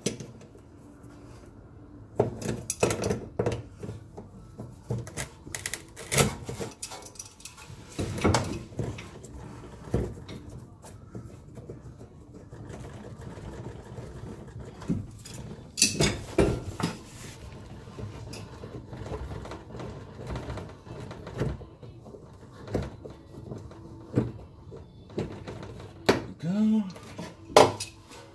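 Irregular clicks, knocks and clatter of hands and a hand tool working at the fuel tank's hoses, plastic fittings and wiring under a car, with the loudest knocks near the end.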